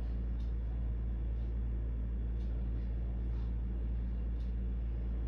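Steady low hum of an open speakerphone line while the other party is silent, with faint ticks about once a second.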